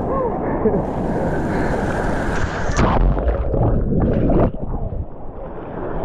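Ocean surf and rushing water at the shoreline, with wind rumbling on the microphone.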